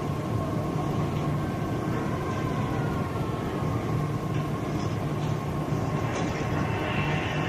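Steady mechanical running noise, low and even, with a constant whine on top, of the kind made by a train or other heavy machinery in motion.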